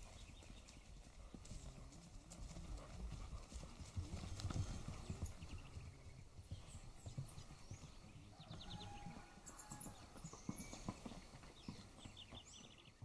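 Horse's hooves clip-clopping in an uneven run of low thuds, with birds chirping.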